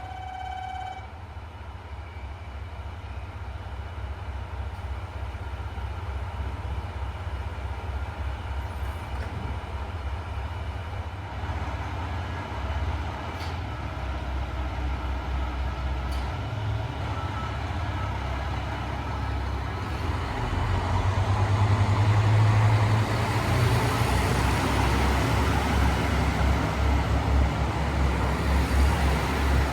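Diesel railcar engine running with a low pulsing rumble that grows steadily louder over about twenty seconds.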